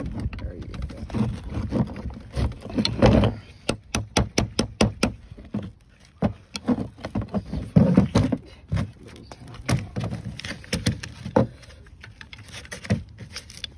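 Irregular metal tapping, knocking and clinking as stuck brake pads are hammered and worked loose from a car's rear brake caliper bracket, with a few heavier knocks among lighter clicks.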